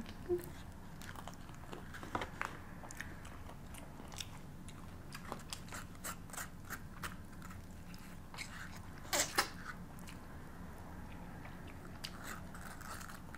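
Close-up eating sounds: crunching and chewing of crispy fried chicken, irregular crisp bites scattered throughout, with two louder crunches a little over nine seconds in.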